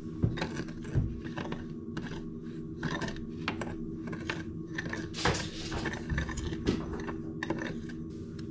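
Spoon clinking and scraping in a small glass bowl while stirring sugar and cinnamon together: a run of irregular light clinks, a few a second.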